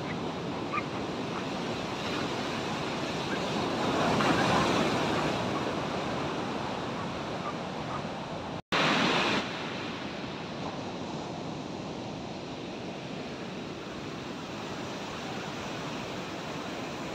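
Ocean surf breaking on a sandy beach, a steady wash of waves with wind on the microphone. The surf swells about four seconds in; about halfway through the sound cuts out for an instant and comes back louder for a moment before settling.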